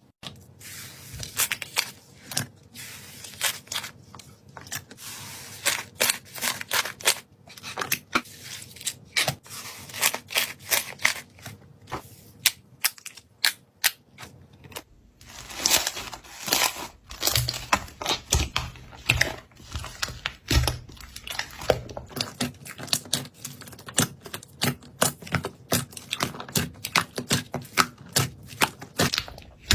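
Slime being pressed, stretched and poked by hand, giving an irregular stream of sharp clicks and pops.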